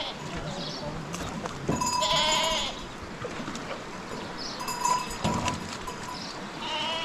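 Bleating from the flock of sheep and goats: one loud, quavering bleat about two seconds in, with fainter calls around five seconds and another at the end.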